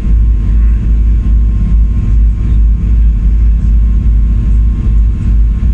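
Passenger ferry's engine running, a loud steady low rumble heard from on board the boat.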